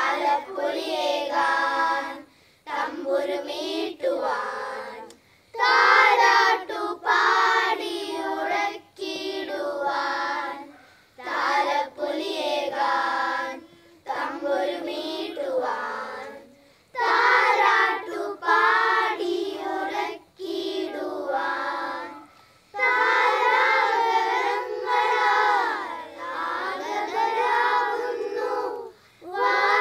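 Children's choir singing a Christmas carol without accompaniment, in short phrases with brief breaks between them.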